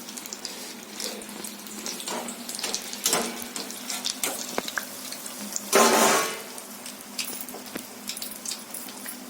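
Chilli bajjis deep-frying in hot oil, a steady sizzle with many small crackles and pops, and one louder surge of sizzling about six seconds in.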